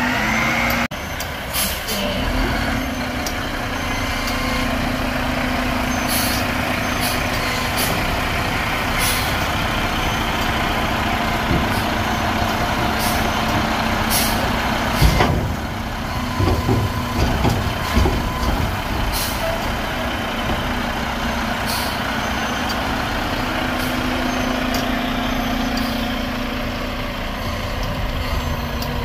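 Mack MRU garbage truck with a Heil front-loader body running and maneuvering, with repeated short air-brake hisses. Heavy clanks about halfway through as the forks pick up a metal dumpster, and a reversing beeper as the truck backs out.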